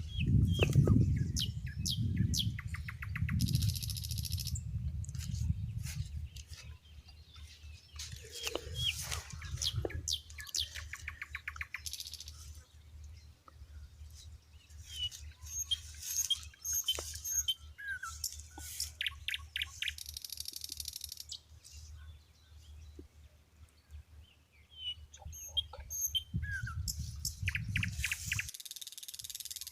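Several small birds chirping, with rapid trills and short sliding calls, over a low rumble that is loudest in the first several seconds and again shortly before the end.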